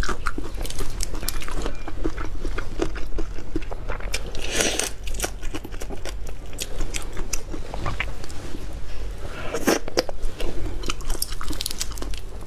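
Close-miked eating of whole marinated shrimp: biting and crunching on the shells, wet chewing, and the shells being cracked and pulled apart by hand, with many small crackles throughout and two longer, louder bursts, one about halfway and one near the end.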